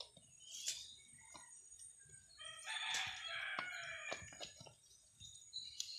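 A rooster crowing once, starting about two and a half seconds in and lasting over a second, over scattered crackles of dry leaves and twigs underfoot.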